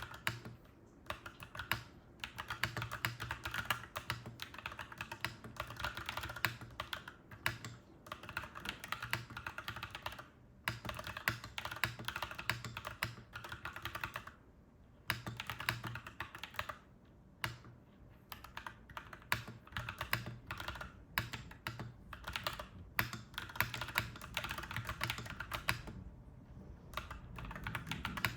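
Clacky mechanical keyboard being typed on in quick runs of keystrokes, broken by a few short pauses, over a faint low steady hum.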